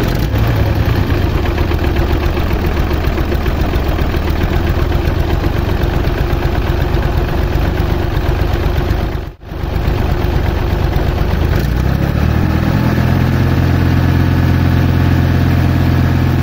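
Tractor engine running steadily, cutting out for a moment about halfway through, then settling into a steadier, stronger note for the last few seconds.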